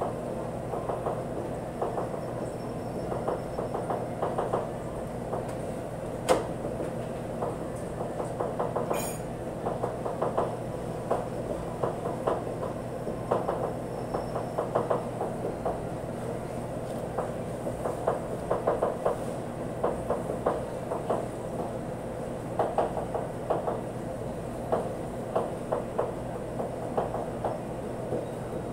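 Steady hum of kitchen machinery under irregular small clicks and taps as raw beef is threaded onto bamboo skewers over a metal tray, with one sharper click about six seconds in.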